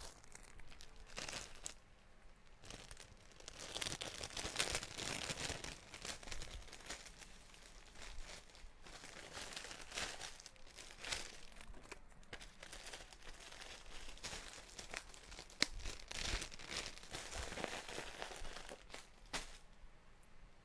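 Clear plastic bag of packaged clothing crinkling and rustling on and off as it is handled, with a few sharp clicks.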